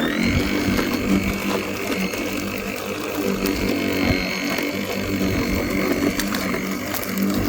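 Battery lawnmower's electric motor running with a steady high whine while cutting grass, with a fast mechanical rattle underneath.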